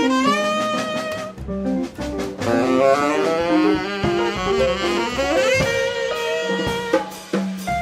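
Live jazz: a tenor saxophone playing fast melodic lines, with a quick rising run about five and a half seconds in, over bass notes and drums.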